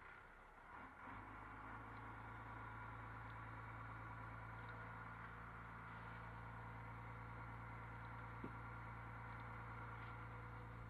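Lobster boat's engine running steadily, a low even hum that steps up about a second in, with one light knock near the end.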